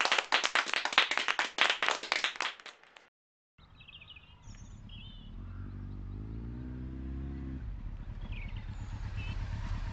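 A small group applauding with rapid, uneven claps that stop abruptly about three seconds in. After a moment of silence comes quiet outdoor ambience with a few high bird chirps and a low hum that rises slightly in pitch.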